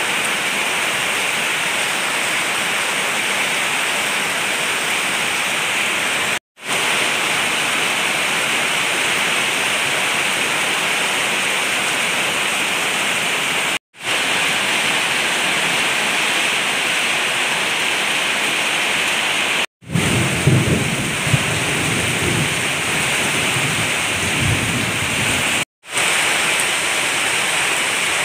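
Very heavy rain pouring down on garden plants and ground in a steady, dense hiss, cut off briefly four times. For a few seconds after the third break a low rumbling joins the rain.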